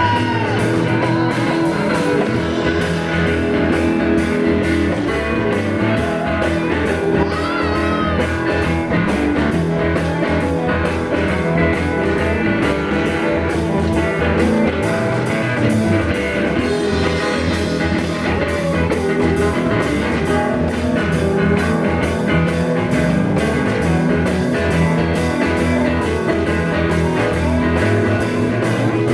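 Instrumental rock music: guitar playing over bass and drum kit with a steady beat, and a few bent guitar notes about a third of the way in.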